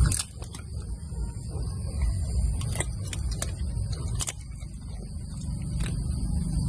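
A dog eating scraps from a small plastic tray: several sharp, irregular clicks and crunches of teeth on the food and the tray, over a low rumbling background.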